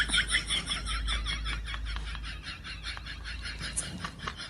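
A small animal's rapid high-pitched chirping or squeaking, about five or six short calls a second, gradually fading.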